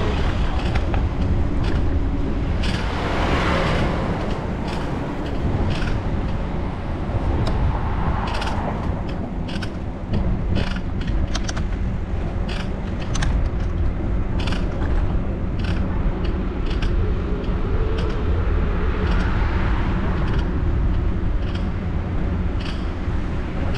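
A bicycle in motion: a steady low rumble of wind and road on the microphone, with frequent sharp clicks and rattles from the bike jolting over an uneven street.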